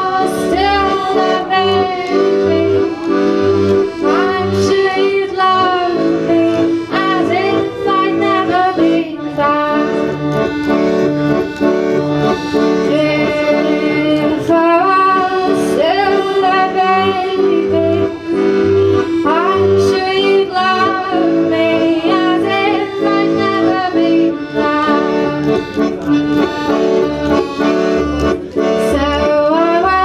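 Piano accordion playing sustained chords over a regular rhythm of bass notes, with a woman singing over it, her voice sliding between notes.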